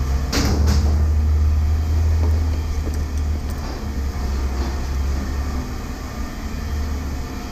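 Vehicle engine idling with a steady low rumble, with two sharp knocks about half a second in.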